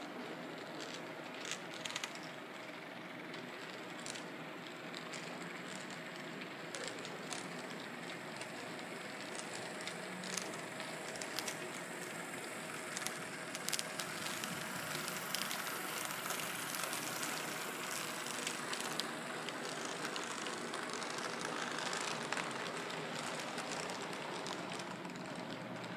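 Model train of Union Pacific DD35 locomotives and Pacific Fruit Express reefer cars running along the track: a steady rolling rumble with scattered small clicks, growing louder as the train passes close by.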